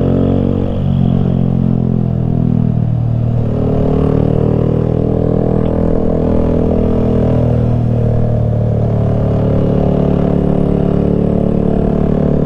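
Honda Grom's small single-cylinder four-stroke engine running as the motorcycle is ridden. Its pitch drops in the first second, dips again about three seconds in, then holds fairly steady.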